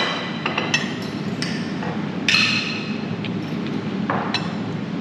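A metal spoon clinking and scraping against a plate as fried rice is scooped: a series of short, sharp clinks with a brief ring, irregularly spaced, several in a row.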